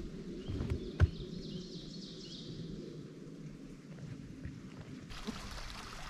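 A hiker's footsteps, with a sharp knock from a heavier step about a second in.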